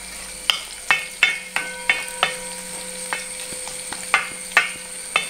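Wooden ladle stirring vegetables frying in coconut oil in a large brass pot: about ten irregular knocks and scrapes of the ladle against the pot, each leaving a short metallic ring, over a light steady sizzle.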